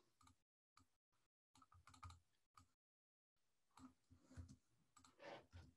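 Faint, scattered computer keyboard typing: short, irregular key taps in small clusters, text being copied and typed into a chat box.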